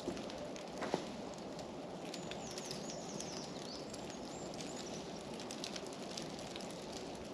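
Outdoor ambience in ice-coated woodland: a steady noise full of small patters, crackles and ticks, with a sharper click about a second in. A bird sings a short high warbling call between about two and four seconds in.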